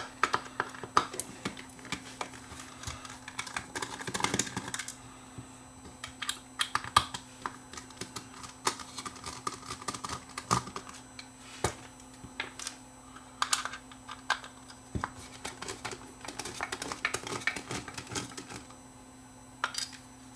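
Irregular small clicks, taps and short scrapes of a screwdriver working screws inside a white plastic security-camera housing, with the plastic shell knocking and creaking as it is turned in the hand.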